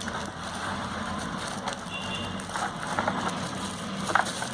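Rustling and light knocks of packaging and accessories being handled, over a steady low background hum.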